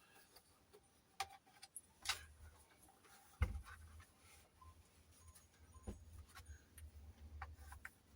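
Plastic laptop case being handled and pried apart: faint scattered clicks and taps, with a sharper knock about three and a half seconds in and another near six seconds, over a low rumble in the second half.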